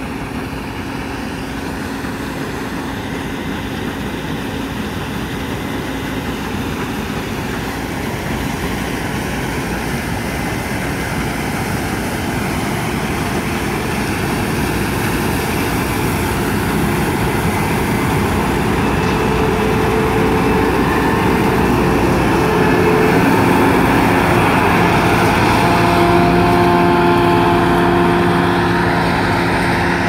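New Holland combine harvester running while cutting and threshing oilseed rape: a steady loud machinery noise with a whine. It grows louder as the machine comes past close by, with several extra whining tones in the second half, and eases slightly near the end as it moves away.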